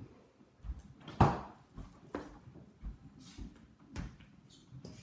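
A utensil stirring thick slime in a stainless steel mixing bowl, knocking and scraping against the metal at irregular moments, with the loudest knock about a second in.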